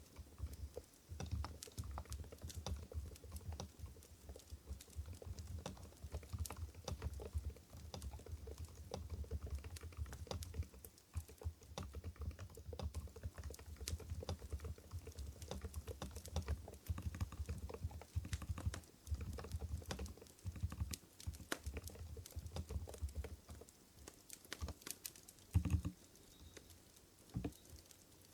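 Continuous fast typing on an Mstone Groove GV10 keyboard with low-noise coral switches (45 g): a dense patter of soft keystrokes with short pauses, thinning out near the end to a few louder single key strikes.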